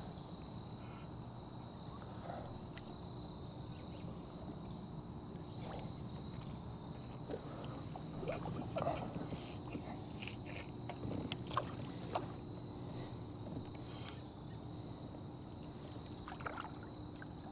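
Crickets chirring steadily, with small knocks, scrapes and water sounds from a kayak drifting on a river.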